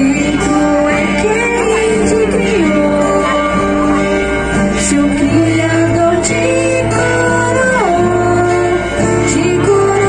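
A Marian hymn sung by voices with instrumental accompaniment, moving in long held notes with slides between them.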